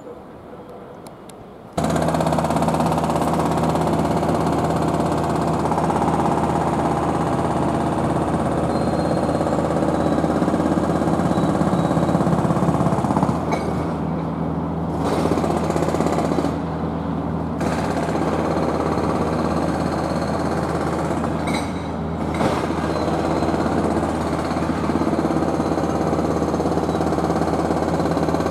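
Construction machinery engine running steadily at close range, cutting in suddenly about two seconds in, with a steady low drone under a rattling noise.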